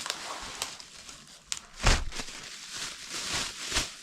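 Packaging being handled and pulled open: irregular rustling and scraping, with a loud knock about two seconds in and a smaller one near the end.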